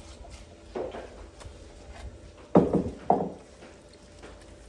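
A few wooden knocks and thumps, the loudest two about two and a half and three seconds in, as a wooden mortar of garlic seasoning is knocked empty over raw chicken in a stainless steel bowl and set down.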